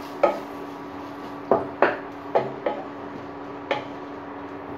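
Wooden spatula knocking and scraping against a nonstick cooking pot while sautéing onions and spices, about six sharp taps at uneven intervals over a steady low hum.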